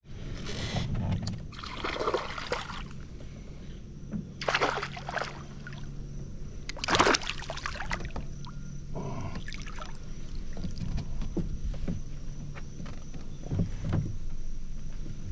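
Splashing and sloshing at a kayak's side as a small fish is released into the river. There are several short splashes; the loudest comes about seven seconds in, as the fish hits the water.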